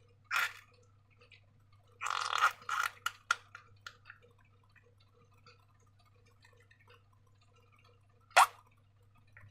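Slime being squeezed and handled, giving wet sticky squelches and clicks. There is one short squish about half a second in, a cluster of squelches and clicks from about two to three and a half seconds, and a single sharp click near the end, over a faint steady low hum.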